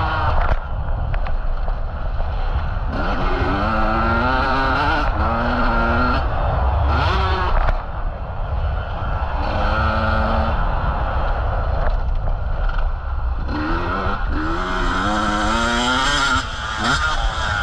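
Motocross bike engine revving hard again and again, its pitch climbing under throttle and falling away between pulls, over a constant low rumble.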